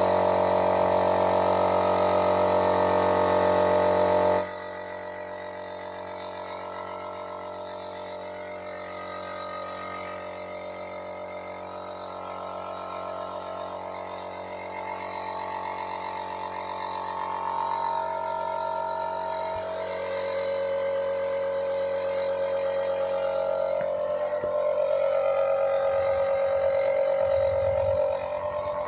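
An electric power tool's motor running with a steady drone. It drops sharply in level about four seconds in and keeps running more quietly, its pitch shifting a little as it works.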